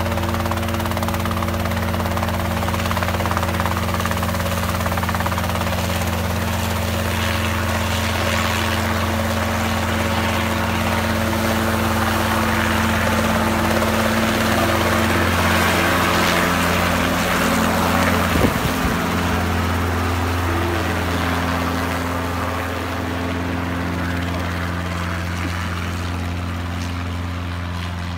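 Small helicopter's engine and rotor running at takeoff power as it lifts off and flies away: a steady low rotor drone with a rushing noise that builds to its loudest about two-thirds through, with a brief knock, then fades near the end.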